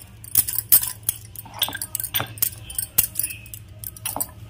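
Wooden rolling pin working a stuffed kachori on a wooden board, with bangles clinking on the wrist as it rolls: a run of irregular light clinks and taps.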